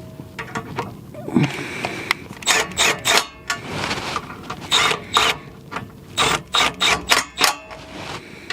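Ratchet wrench with a 12 mm socket worked back and forth to run a bolt in, the pawl clicking in a run of short rasping strokes at an uneven pace.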